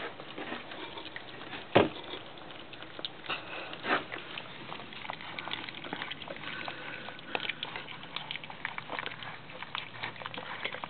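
Young puppies lapping and smacking at soaked kibble mush on a plate: a steady run of small, irregular wet clicks, with a sharper click about two seconds in.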